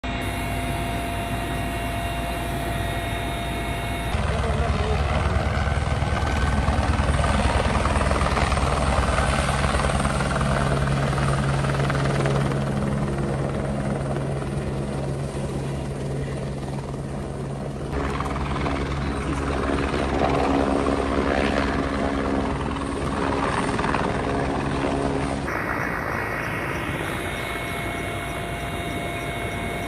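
Steady low rumble of vehicle engines with an engine hum, changing abruptly three times where separate clips are joined.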